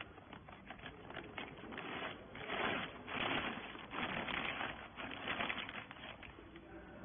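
Irregular mechanical clatter with many sharp clicks and rattles, swelling in several surges from about two seconds in.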